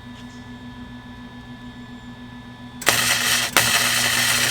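MIG welding arc from a Lincoln Electric MIG-Pak 180 wire-feed welder laying a tack weld: a loud sizzling hiss starts almost three seconds in, breaks off for an instant, then carries on and stops abruptly at the end.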